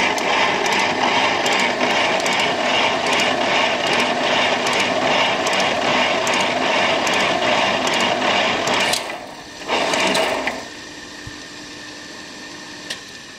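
Värnamo metal shaper running, its ram stroking back and forth as the 14-degree positive-rake toolholder takes a cut in metal, with a regular click on each stroke. The machine noise drops off about nine seconds in, comes back briefly a second later, then leaves only a faint steady hum and a single click.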